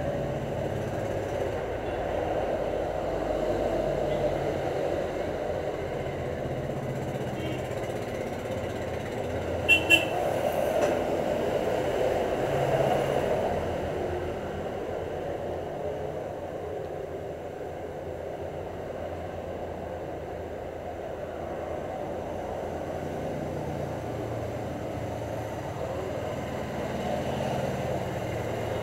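Steady low background rumble, with two short sharp sounds in quick succession about ten seconds in.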